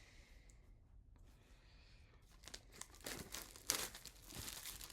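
Plastic shrink wrap crinkling and tearing as it is pulled off a tin, starting about halfway in, with one sharp crackle near the middle.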